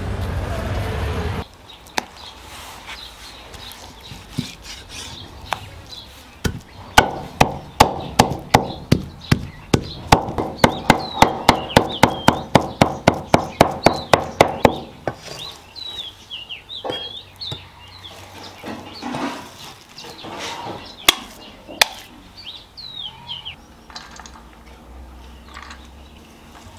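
Steel meat cleaver chopping pork into mince on a wooden chopping block: a fast run of sharp, evenly spaced strikes, three to four a second, then slower scattered chops. Small birds chirp in the background.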